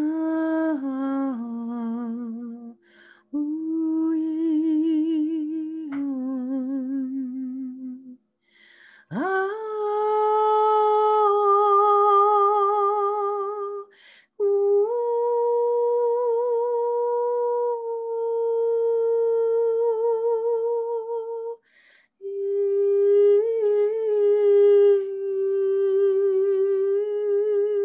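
A woman's voice singing long, wordless held notes with a wavering vibrato, in five slow phrases with short breaths between them; about nine seconds in, one phrase swoops up from low to high. It is devotional 'sacred sound' vocalizing.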